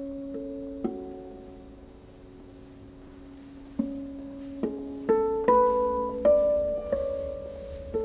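Concert harp playing harmonics in a slow introduction, in a cathedral: single plucked notes that ring on and fade away. A few notes at first, a lull of about three seconds, then several notes in quicker succession.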